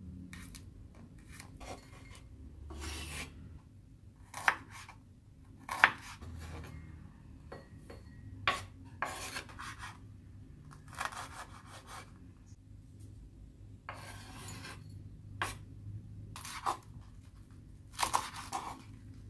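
Kitchen knife cutting bok choy on a wooden cutting board: irregular knocks of the blade on the board with short scraping and rubbing sounds between them. The loudest knocks come about four and six seconds in.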